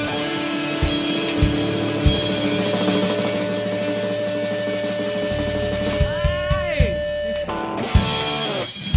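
Live rock band ending a song: a held chord on guitar and keys with drum hits and fills, then several notes sliding down in pitch about six seconds in, and a final drum hit near the end.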